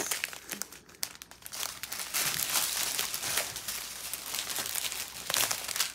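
Plastic packaging of a diamond painting kit crinkling and rustling as it is handled: scattered crackles at first, then steady crinkling from about two seconds in.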